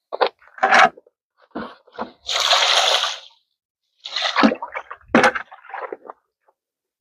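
Wet concrete being worked in a post hole with a shovel: irregular scrapes and wet splats, with one long scrape about two seconds in.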